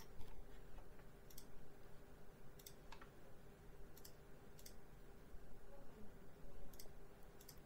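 Computer mouse clicking: a handful of faint, separate clicks spread unevenly over several seconds, some close together in pairs.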